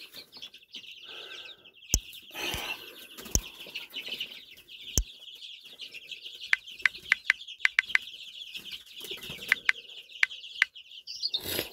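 Quick light clicks of typing on a smartphone touchscreen keyboard, a run of about ten short taps in the second half, over a steady high-pitched background noise. A few louder single knocks come in the first half.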